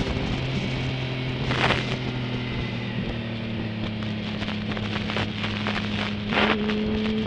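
Motorcycle engine running at a steady note through a bend after its revs drop at the start, heard from on the bike with wind noise on the microphone. Two louder rushes of wind noise come about a second and a half in and near the end.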